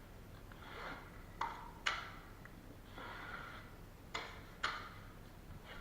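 Drywall knife pushing fast-setting joint compound into a drywall joint and wiping it flat: soft scraping swishes of the blade, with about four sharp clicks of the knife in two pairs.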